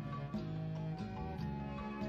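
Instrumental music led by kalimba: plucked, ringing notes over held bass notes.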